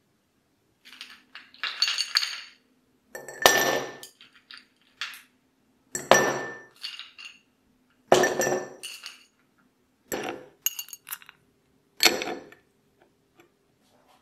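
Ice cubes lifted with metal tongs from a glass bowl and dropped one at a time into a drinking glass, each clinking sharply against the glass and the cubes already in it, about every two seconds.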